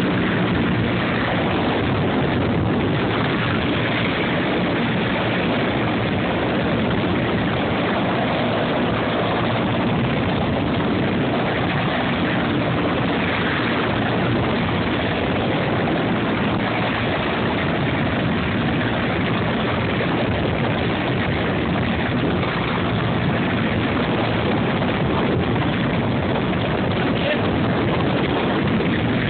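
Helicopter in flight: steady, loud engine and rotor noise with no change in level.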